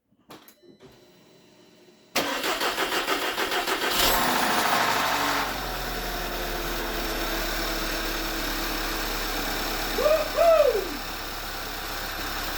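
Volkswagen Tiguan 2.0 TSI turbocharged four-cylinder engine cranking on the starter with a pulsing churn for about two seconds, then catching with a brief flare of revs and settling into a steady idle. This is the first start after a cylinder head rebuild for bent valves: the engine runs.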